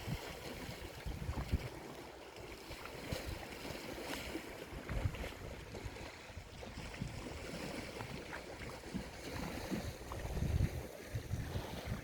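Wind buffeting the microphone over a steady wash of sea and wave noise, with gusts swelling near the end and a few faint knocks.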